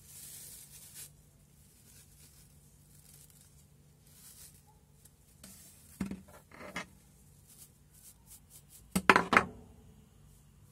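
Gloved hands handling plastic-backed nylon drill scrubber brushes on a table: a soft rustle of bristles near the start, a couple of knocks about six seconds in as the large flat brush is set down, and a quick run of sharp plastic clicks and knocks about nine seconds in, the loudest part.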